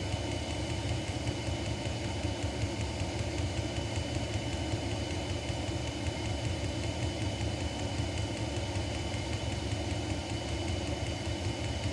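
Diesel heater running steadily with propane fed into its burner: an even low hum and rush from the combustion and blower, with a faint steady high whine.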